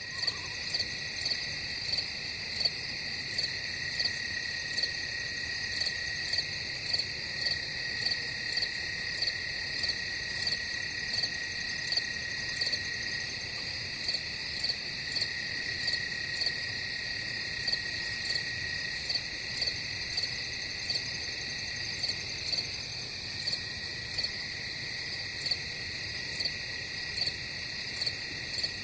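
Crickets chorusing: a steady high trill, with a louder chirp repeating evenly about once every 0.7 seconds.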